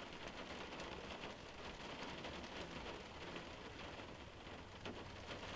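Faint, steady hiss-like noise with a light crackle.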